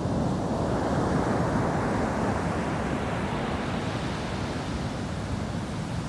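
Ocean surf breaking and washing up the beach. A rushing hiss swells about a second in and eases off near the end, over a steady low rumble of the sea.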